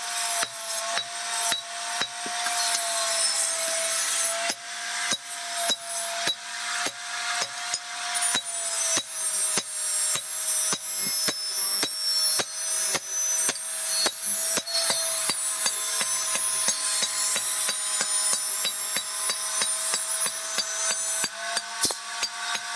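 Hand hammer striking red-hot iron on a steel anvil, a steady run of sharp metallic blows at about two to three a second, as a meat cleaver blade is forged to shape. A steady hum runs beneath the blows.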